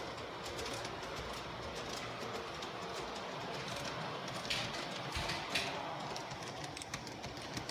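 LGB G-scale model train running on its track, wheels clicking and rattling over the rails, with a few louder clicks about halfway through as the locomotive comes close.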